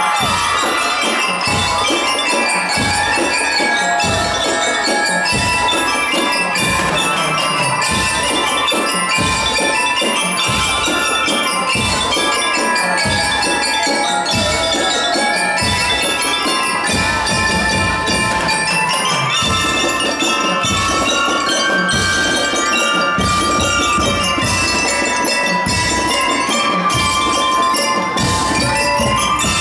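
Marching band playing, led by a front line of mallet bells ringing out the melody over a steady drum beat.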